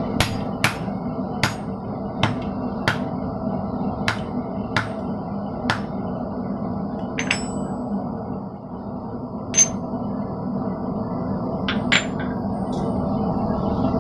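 Blacksmith's hammer striking a steel bar on the anvil and swage while forging: sharp, ringing blows about one every 0.7 s for the first six seconds, then a few scattered blows. A steady hum runs underneath.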